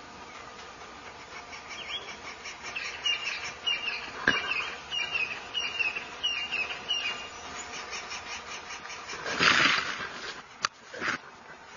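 A steady insect chorus with a run of short repeated chirps a few seconds in. Near the end there is a loud rustling burst as a leopard lunges at a porcupine, then a sharp click and a second, shorter burst.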